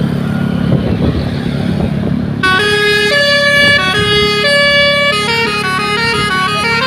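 A Bukit Jaya bus's telolet horn, a multi-tone musical air horn, starts about two and a half seconds in and plays a tune of held notes that change pitch every half second to second. A steady low engine rumble runs underneath.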